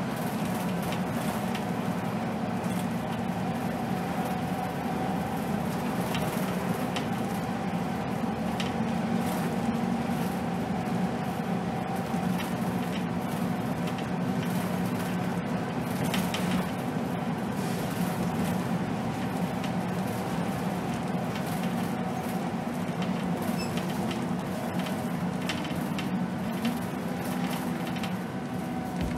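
Scania K280 city bus heard from the driver's position: the diesel engine running with a steady hum under road noise, and scattered light rattles.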